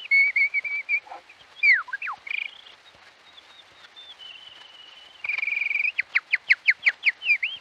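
A human bird-song imitator whistles a canary-like song. It opens with a warbling trill, then a sharp downward swoop, a held whistle and another trill, and ends with a fast run of falling whistled notes at about six a second.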